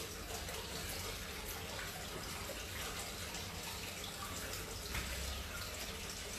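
Steady hissing background noise, with a few faint clicks and rustles.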